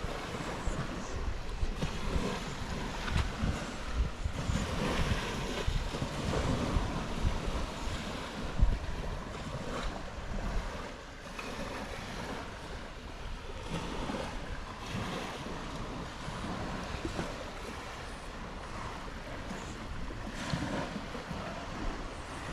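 Sea waves washing on the shore, with wind gusting across the microphone in uneven low rumbles.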